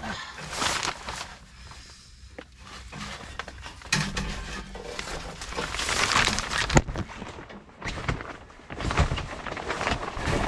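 Irregular rustling and scraping of someone moving about and handling things at close range, with one sharp knock about seven seconds in.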